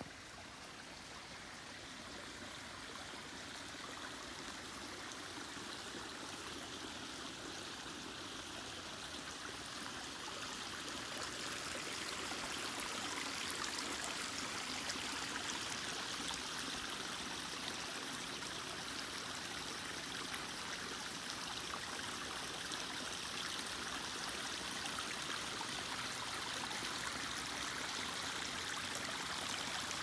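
Shallow creek water trickling and splashing over rocks and a concrete ledge, growing louder over the first ten seconds or so, then steady.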